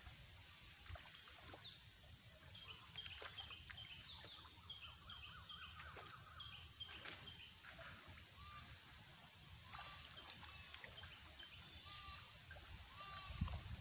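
Faint bird calls: a quick run of short, repeated high chirps in the middle, then a few lower notes near the end.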